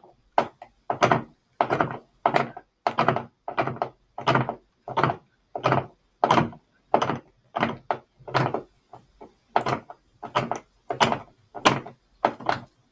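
Hand screwdriver driving a screw through a caster's metal mounting plate into a polyethylene cart shelf, with a short creak at each twist of the wrist, about one and a half a second, evenly repeated.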